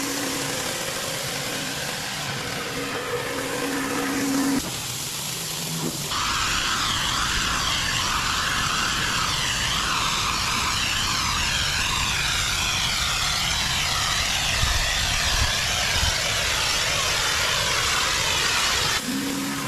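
Pressure washer engine humming steadily. About six seconds in it gives way abruptly to a loud, shifting hiss of high-pressure water spray blasting a hard surface. Near the end the steady engine hum returns.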